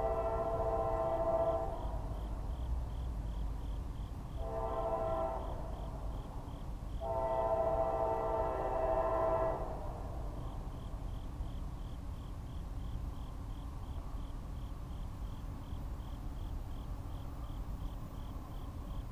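Locomotive air horn sounding three blasts: one ending about two seconds in, then a shorter one and a longer one about four to ten seconds in, the usual signal of a train coming up to a level crossing. A low rumble runs under it.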